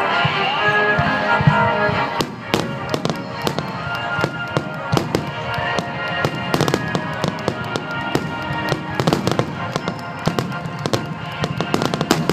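Music at first, then from about two seconds in a fireworks display sets off a dense, rapid run of pops and crackles, with the music still playing underneath.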